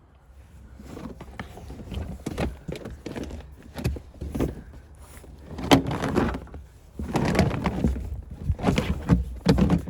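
A rubber floor mat being shifted and pushed into place in a pickup's cab: irregular rubbing and scraping with dull knocks, loudest in clusters in the second half.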